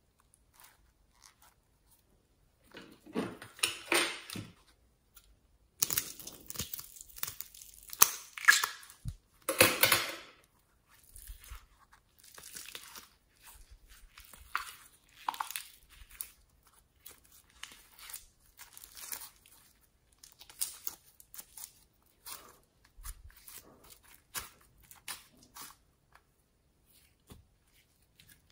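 Mesh-netted squishy stress ball squeezed by hand until its orange gel squeezes out through the netting, then the sticky gel is pulled and stretched, giving irregular squelching, tearing sounds. The sounds come in bursts, loudest and densest in the first ten seconds, then softer and more scattered.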